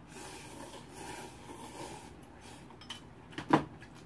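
Ramyeon noodles slurped from a bowl: a long airy slurp over the first two seconds, then a few short clicks and smacks of eating, with one sharper, louder one about three and a half seconds in.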